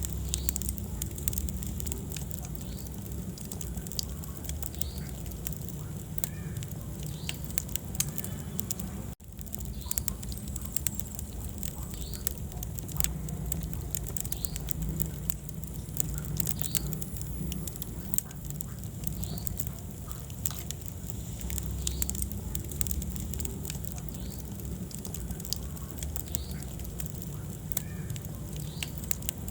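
Wood fire burning in a fireplace: frequent irregular crackles and pops over a steady low rumble of flame. The sound cuts out for a moment about nine seconds in.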